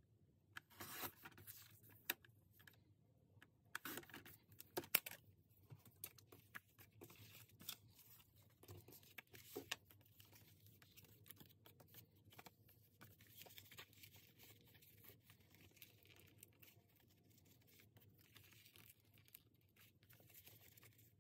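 Paper being handled: a photo print cut on a sliding paper trimmer, with sharp rustles and clicks in the first five seconds, then faint rustling and sliding of photo prints and journal pages as they are laid in place.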